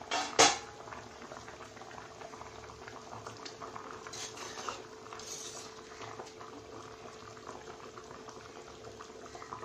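Fish curry simmering and bubbling in an earthenware clay pot, with one sharp clink about half a second in. A spoon stirs through the thick gravy around the middle.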